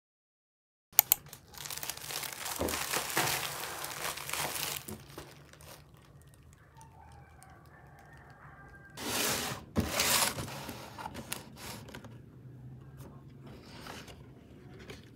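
Packaging being handled and torn open: tearing and crinkling rustles starting about a second in, fading after a few seconds, and a second loud burst of rustling about nine seconds in, followed by light taps and clicks.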